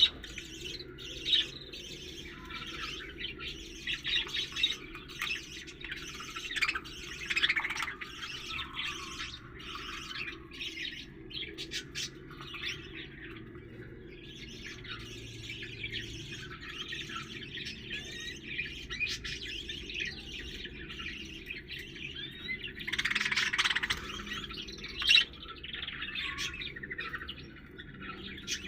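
Pet lovebirds chirping and squawking in busy, continuous chatter, with a louder burst of calls about four-fifths of the way through.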